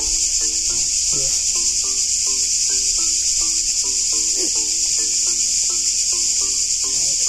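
Loud, unbroken chorus of cicadas, a steady high-pitched buzzing hiss.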